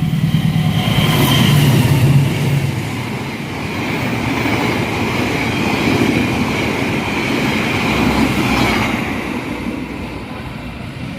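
Train running past on the rails, a steady rumble of wheels and cars with a steady high squeal over it that fades near the end.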